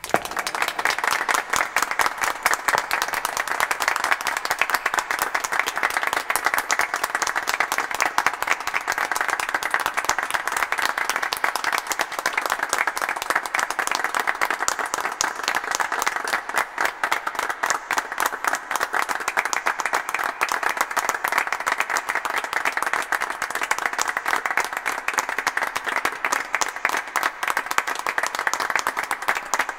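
A crowd applauding, many hands clapping steadily.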